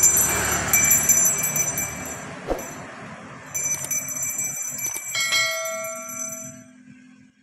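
Railway level-crossing warning bell ringing rapidly, the sign of an approaching train; the ringing breaks off briefly about two seconds in and resumes. About five seconds in, a lower chime rings out and fades away.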